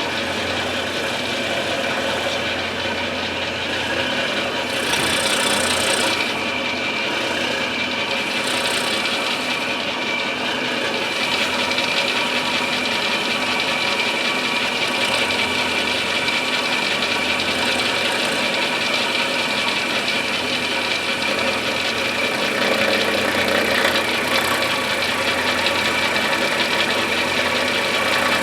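Milling machine running, its cutter working into an English walnut gunstock to mill the inletting: a steady high motor whine with cutting and rubbing noise.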